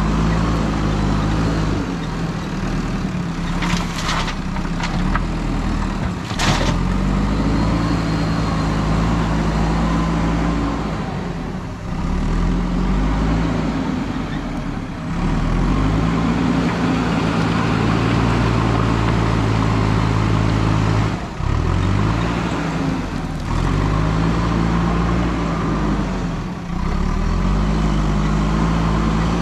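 JCB 3DX backhoe loader's diesel engine working under load, revving up and dropping back again and again as the front bucket digs and lifts gravel. A few sharp knocks are heard about 4 seconds in and again a couple of seconds later.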